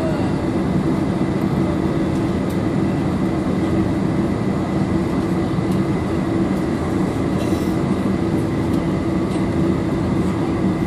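Steady cabin drone inside a Boeing 747-400 standing on the ground with its jet engines idling: an even rush with a low hum and a faint high whine.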